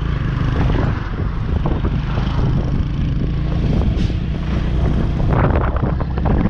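Steady low rumble of a moving vehicle with wind buffeting the microphone.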